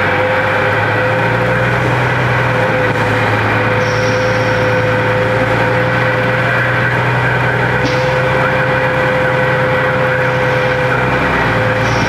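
Vehicle engine and road noise heard from inside the cab while driving slowly, a steady drone with a constant hum. A short high squeak comes about four seconds in and again near the end.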